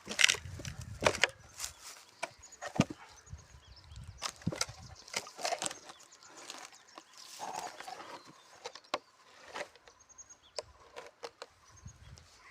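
Irregular wooden knocks and snaps, a dozen or so sharp cracks spread unevenly over several seconds, with no saw running.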